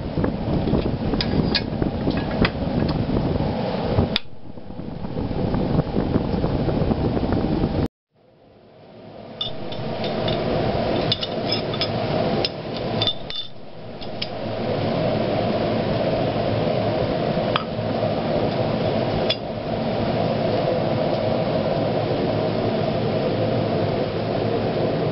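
Light metallic clinks and taps as a steel jig and tools are handled, over a steady low workshop noise. The sound cuts out briefly about eight seconds in.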